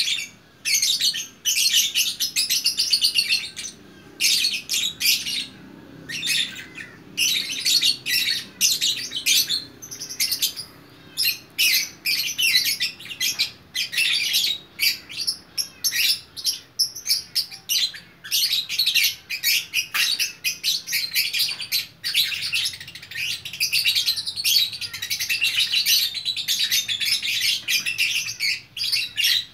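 Lovebird in full 'gacor' song: long runs of rapid, high, scratchy chirps and twitters, broken only by brief pauses.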